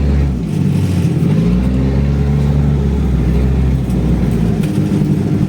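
Off-road 4x4 engine running under load, its revs rising and falling.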